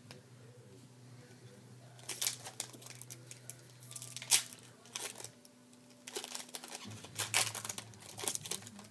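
Foil wrapper of a trading-card pack being torn open and crinkled, in crackling spells starting about two seconds in. It is sharpest near the middle and again near the end. A low steady hum runs underneath.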